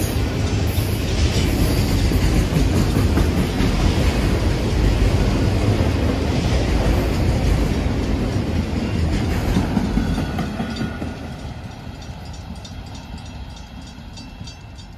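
Autorack freight cars rolling past on steel wheels and rails, a loud steady rumble that starts fading about ten seconds in as the end of the train passes and moves away.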